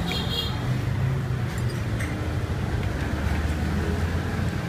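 Steady low rumble of street traffic, with no one speaking.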